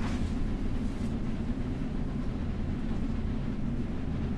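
Steady low hum of background noise at an indoor shooting range, with no shot fired.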